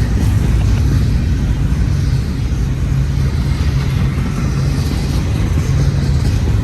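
Long double-stack intermodal freight train rolling past close by: a steady, loud rumble of its well cars' wheels on the rails.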